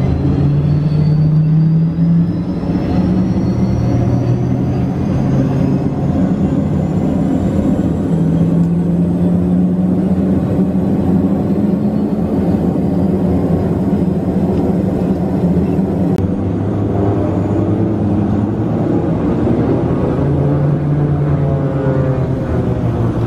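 LET L-410 turboprop engines heard from inside the cabin, running steadily with a low propeller drone. A faint high whine rises slowly in pitch over the first ten seconds or so.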